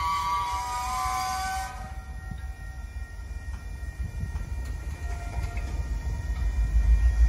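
A diesel locomotive horn sounds a chord and cuts off about two seconds in. Then the low rumble of a cut of tank cars rolling past, growing louder near the end.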